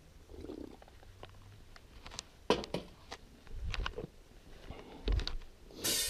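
Scattered light clicks and soft low thumps of someone walking about on a concrete garage floor and handling the camera. Rock music with drums cuts in just before the end.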